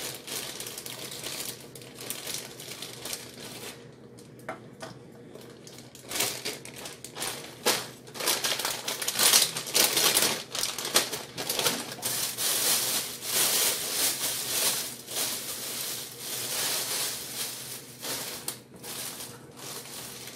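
Plastic zip-lock bags crinkling and rustling as they are handled and opened, in an irregular crackle with sharp clicks, quieter for a couple of seconds about four seconds in and busiest in the second half.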